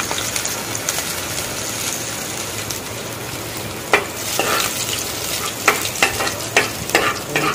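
Chopped garlic and ginger with cumin seeds sizzling steadily in hot oil in a non-stick kadhai. From about four seconds in, a metal spoon stirring and scraping the pan makes a run of sharp clicks.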